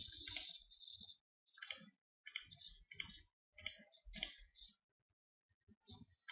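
Computer mouse button clicking repeatedly, a string of faint separate clicks mostly between about one and five seconds in, as installer dialog buttons are pressed.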